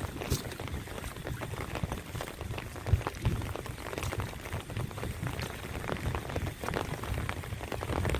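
Rain pattering on open water, a dense run of irregular small drips and splashes, with dull low thuds now and then.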